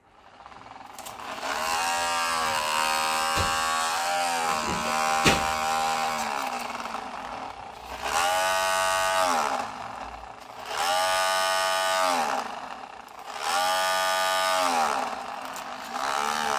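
Small electric drive motor from a toy train, running directly off a solar panel and whining as it spins. It runs for about five seconds with its pitch wavering, then starts and stops three more times, each run rising in pitch and dropping away as it slows. The panel is supplying enough current to turn the motor. Two sharp clicks come during the first run.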